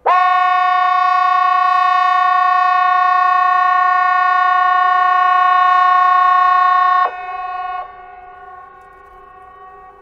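Hesa Fredrik civil defence alarm horn sounding one steady, unwavering tone for about seven seconds, then cutting off abruptly. This is the seven-second blast of the quarterly test signal. A fainter tone from more distant horns lingers briefly and fades.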